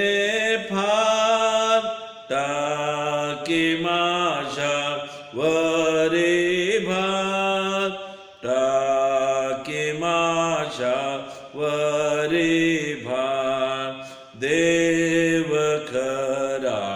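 A man singing a Marathi hymn in slow phrases, each of about three seconds, with long held notes and short breaks between them.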